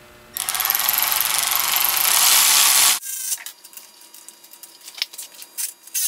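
Handheld cordless power tool running for about two and a half seconds as it drives a socket to snug down a spark plug on a 5.9 Magnum V8; a steady whirr with a fast rattle that stops abruptly. Light clicks and knocks of tool handling follow.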